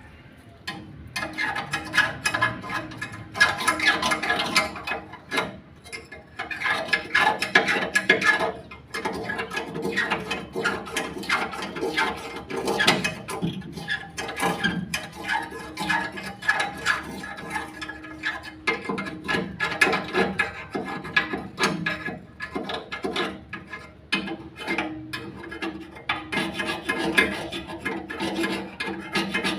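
Metal stock pot being scraped in rapid rasping strokes, in bouts of a few seconds, the metal ringing under the strokes.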